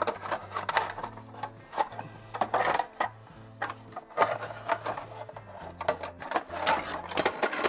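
Hand tools working on a bicycle crank: a run of quick metallic clicks and scraping, over background music with a steady bass line.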